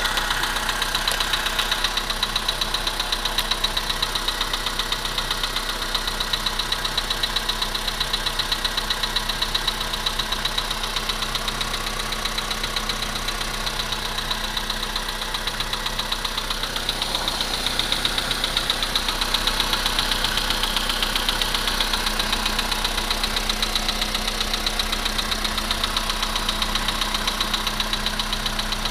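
VW engine idling cold with a steady, rapid knock; the knock, heard for about two minutes after a cold start, was cured by replacing the pistons and the hydraulic valve lifters.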